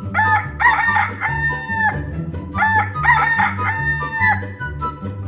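A rooster crowing twice, each cock-a-doodle-doo ending in a long held note, over soft background music.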